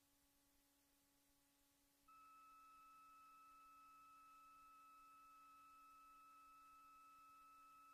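Near silence with a faint steady low electronic hum; about two seconds in, a faint steady high pure tone switches on and holds unchanged.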